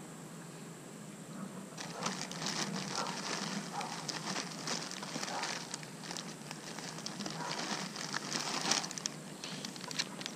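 Crinkling and rustling of a plastic soft-bait package and tackle bag being handled, in quick irregular crackles starting about two seconds in.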